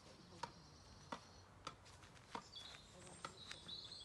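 Tennis ball being volleyed back and forth with rackets, a short sharp pock of ball on strings about every half second to second, six or so hits. Faint birdsong.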